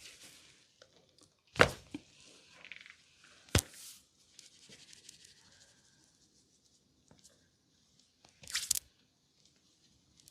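Hands rubbing and kneading a client's hair and skin during a head massage, with three loud, sharp impacts: one early, one about two seconds later, and a short double strike near the end.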